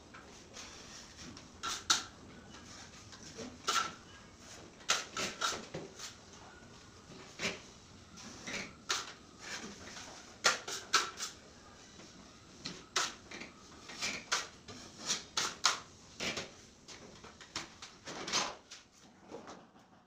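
Metal putty knife scraping joint compound off a hand trowel and along fibre-cement ceiling board seams: short, irregular scrapes and clicks.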